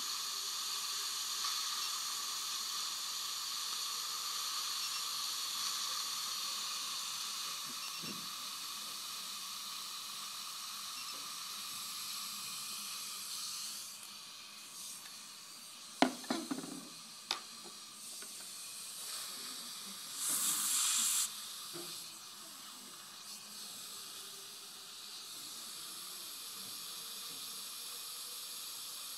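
Dental suction hissing steadily, dropping in level a little after halfway. Partway through come a few sharp clicks and a louder hiss about a second long.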